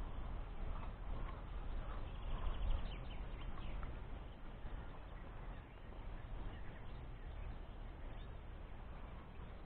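Wind buffeting the microphone as a steady low rumble, with faint short bird calls over it.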